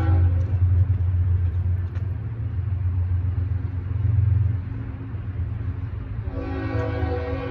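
Diesel locomotive air horn sounding for a grade crossing as the BNSF train approaches: one blast ends just after the start, a second begins about six seconds in, with a strong low rumble in between.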